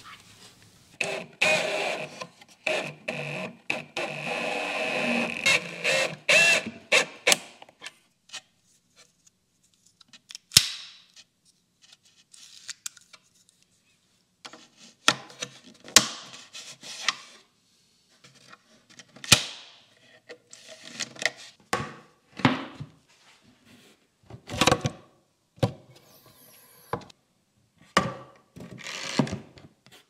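Cabinet-building work sounds: a cordless drill runs in several short spells during the first seven seconds or so, then scattered sharp knocks and clunks of wood panels and hardware being handled.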